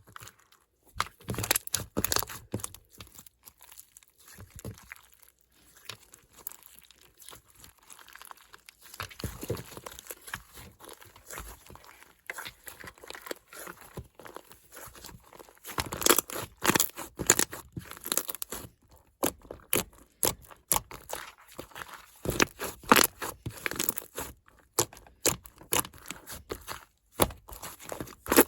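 Slime being squished and pulled by hand, giving irregular sticky crackles and clicks, softer through the middle and louder and denser from about sixteen seconds in.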